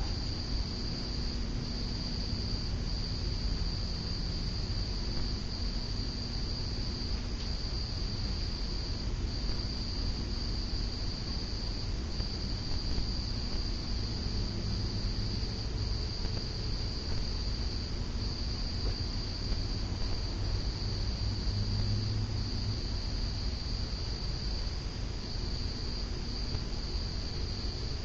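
Steady high-pitched insect trill that runs on with only tiny breaks, over a low steady hum.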